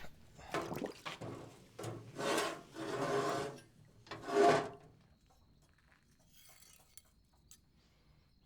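Four scraping strokes, each under a second long, in the first five seconds, then a few faint ticks.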